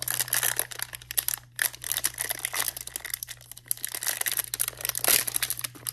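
Clear plastic shrink-wrap crinkling and tearing as it is pulled off a small cube box, with a louder crackle about five seconds in.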